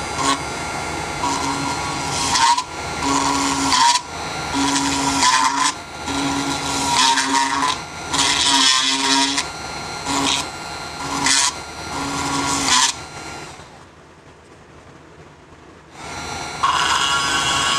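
A homemade mini drill built on a 775 DC motor, running and drilling small holes in a plastic jar. The sound comes in repeated surges of about a second each as the bit is pressed in, goes quieter for a few seconds near the end, then picks up loudly again.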